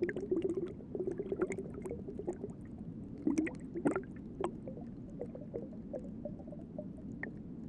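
Water gurgling and bubbling, with many irregular small clicks and pops that cluster a little after three and four seconds in.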